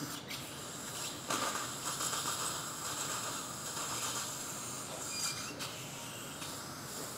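Dental suction tip hissing steadily in the patient's mouth as an implant handpiece drives a mini dental implant into the upper jaw. A short faint beep comes about five seconds in.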